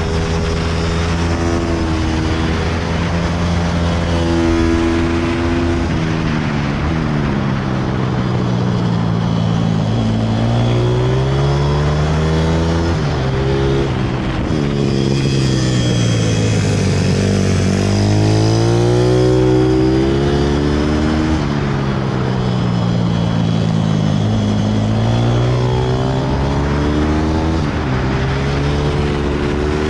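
Pit bike engine heard from on board at speed, its revs climbing under acceleration and dropping off as it slows for corners, rising and falling several times.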